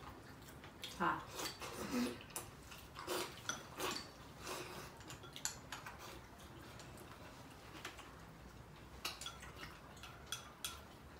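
Chopsticks and porcelain bowls clinking and tapping during a meal: scattered light clicks, busiest in the first few seconds and again near the end.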